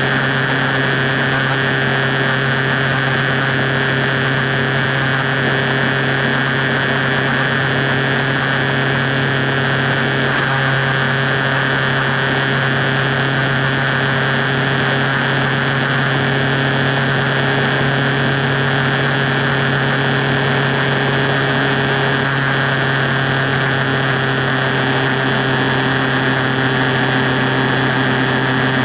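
Motorcycle engine running at a steady cruising speed on the highway, an even unchanging drone with steady rushing wind and road noise.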